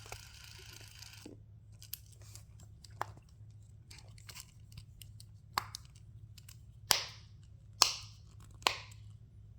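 Dimple fidget toy (a triple dimple spinner) clicking and popping: faint scattered clicks, then four sharper pops in the second half.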